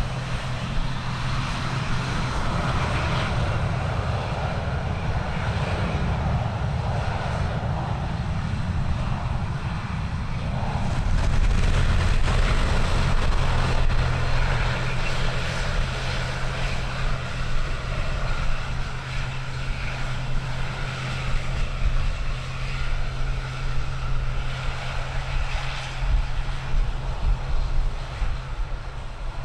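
Aircraft engines running steadily, swelling a little about a third of the way in, with wind rumbling on the microphone.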